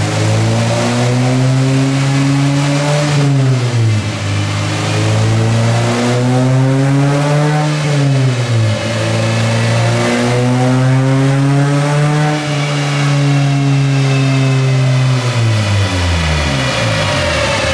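Honda Civic's four-cylinder engine running hard on a chassis dyno with the front wheels spinning on the rollers. Engine speed climbs and drops back three times, falling about three seconds in, again about eight seconds in, and once more near the end.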